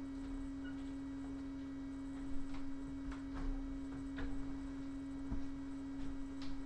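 A steady electrical hum at a single low pitch, with a few soft knocks and rustles scattered through it.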